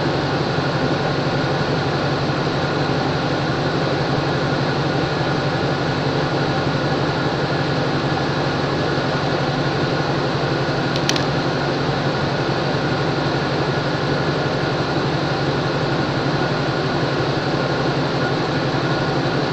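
Diesel locomotive idling steadily at a standstill, its engine and cooling fans giving a constant drone. A single sharp click about eleven seconds in.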